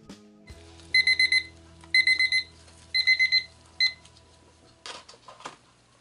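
Digital kitchen timer beeping its alarm: three quick bursts of rapid high beeps about a second apart and a short fourth one, cut off when the timer is stopped. It signals the end of the five-minute resin mix.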